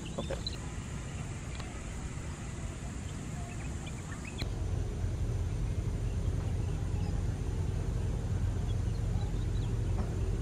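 Airfield ambience with a few short bird chirps, then about four and a half seconds in a sudden switch to a steady low rumble of a twin-engine jet airliner on final approach.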